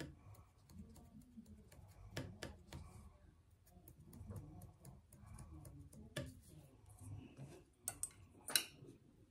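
Faint handling sounds at a sewing table: fabric rustling and a few scattered light clicks and taps as a dress is marked with a marking pencil and shifted under the sewing machine's presser foot. The sewing machine is not running.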